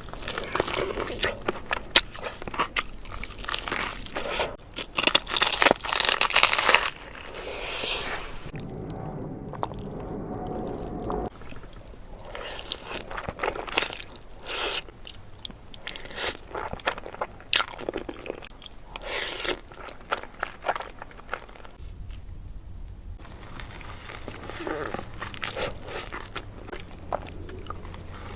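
Close-miked eating of Jollibee food: repeated crisp bites and crunchy chewing, with many sharp crunches, loudest about a quarter of the way in.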